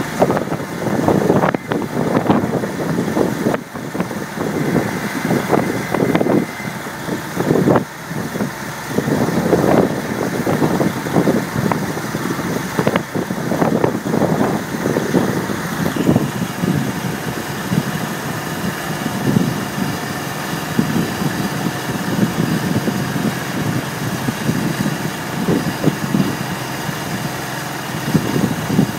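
A large engine idling steadily, with uneven surges in the noise.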